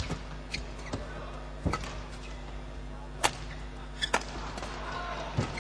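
Badminton rackets striking the shuttlecock in a rally: several sharp, crisp hits about a second or so apart over a steady arena hum.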